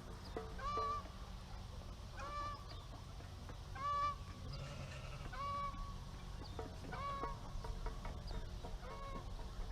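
Domestic fowl calling with a short, even-pitched call, repeated six times at a steady pace about one and a half seconds apart, over a low steady background hum.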